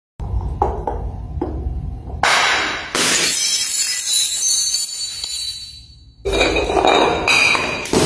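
Glass bottles smashing on marble stairs, with sudden crashes followed by shards clinking and rattling over the stone. The sound changes abruptly several times. Music plays underneath.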